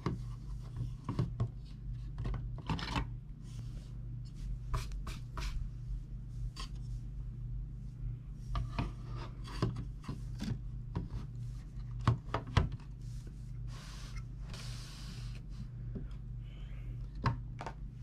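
A Corsair SF450 power supply being fitted by hand into a Dan A4 metal PC case: scattered clicks, knocks and rubbing of the metal parts and cables, the loudest two sharp knocks about twelve seconds in and a longer scraping rub a couple of seconds later. A steady low hum runs underneath.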